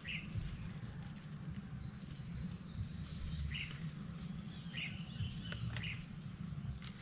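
Wild birds giving a few short chirps, spread a second or more apart, over a low steady rumble.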